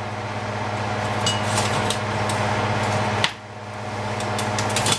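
Butter-and-flour roux sizzling in a stainless steel pan over a steady electrical hum, with a few light clicks. About three seconds in, a sharp click comes and the hum and sizzle drop off suddenly, then the sizzle slowly builds back up.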